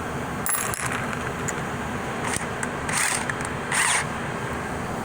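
Thread tap cutting new threads into the drilled bolt hole of a Turbo 350 transmission's aluminium case: a few short, high metallic scrapes over a steady shop hum.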